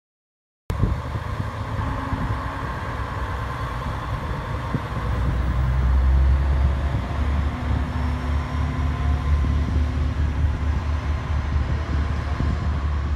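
KiHa 47 diesel railcar's engine working as the railcar pulls away from the platform. Sound cuts in after a brief silence, and a deep engine drone swells louder about five seconds in, then holds steady.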